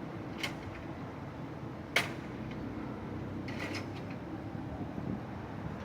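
A few sharp clicks and knocks, the loudest about two seconds in and a brief cluster later, over a steady background hum, consistent with work on the engine during a timing belt job.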